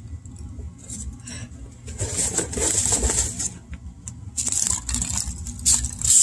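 Packing peanuts and cardboard being handled in a shipping box: irregular rustling and scraping in bunches, loudest about two seconds in and again from about four and a half seconds, over a steady low hum.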